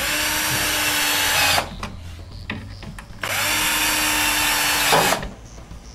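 Power drill driving screws through a metal slide bracket into a cabinet panel: two runs of motor whine, about a second and a half and two seconds long, each stopping abruptly.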